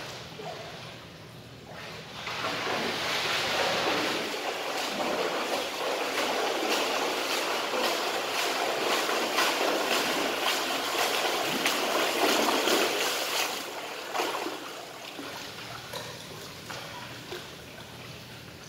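A swimmer's strokes and kicks splashing in a pool lane. The splashing swells about two seconds in, stays loud and churning, then drops off after about thirteen seconds to lighter sloshing of disturbed water.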